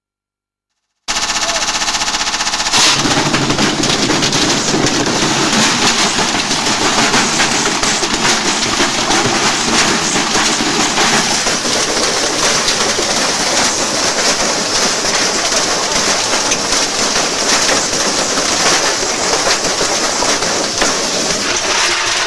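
Washing machine tearing itself apart on a high-speed spin: a loud, dense, rapid hammering and rattling of the drum against the cabinet, with a motor hum under it at first. It starts and stops abruptly.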